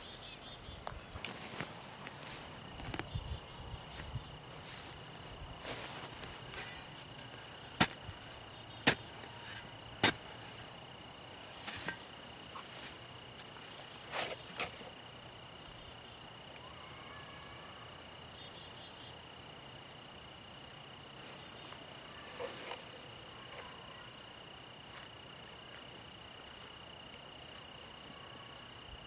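Shovel blade striking the ground while digging planting holes, a few sharp knocks with three loud strikes about a second apart around a third of the way in. Behind it, crickets chirp in a steady pulse under a continuous high whine.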